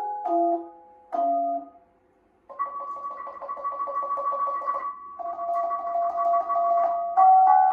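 Thai gong circle (khong wong) played with padded mallets: a few single struck notes ring and fade. After a short pause about two seconds in, rapid repeated strokes roll on pairs of bossed gongs, sounding two pitches together as a held tremolo.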